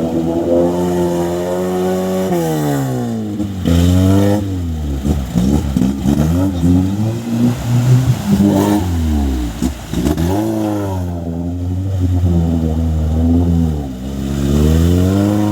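Lada Niva's engine revving up and down while driving through mud. Its pitch drops and climbs again several times.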